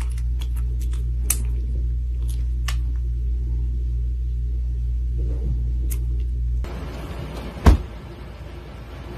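Kitten purring: a steady low rumble that stops suddenly about two-thirds of the way through. About a second later comes a single sharp knock, the loudest sound.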